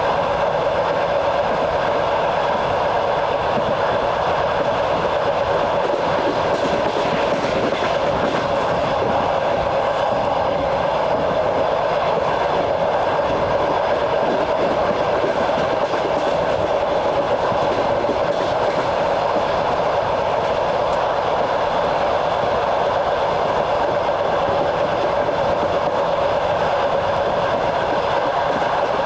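Moving passenger train heard from aboard: a steady rolling rumble of steel wheels on the rails, with a faint clickety-clack.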